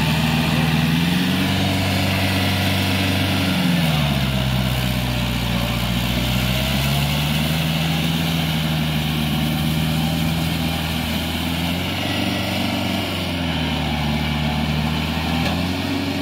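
Kubota L4508 4x4 tractor's diesel engine running under load while it tills through deep paddy mud, its engine speed rising and falling several times as it labours: up about a second in, down near four seconds, up and down again around twelve to fourteen seconds, and rising again near the end.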